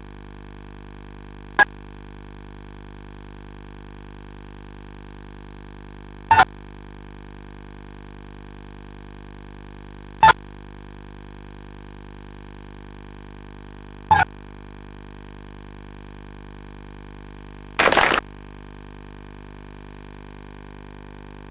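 Steady electrical hum from an audio system, broken by five short, loud blips about four seconds apart; the last blip, near the end, is a little longer.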